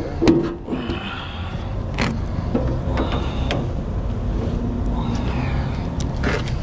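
Steady low rumble of an idling vehicle engine, with a few sharp metallic clicks and clanks scattered through it as jump-box clamps are put on a heavy truck's batteries.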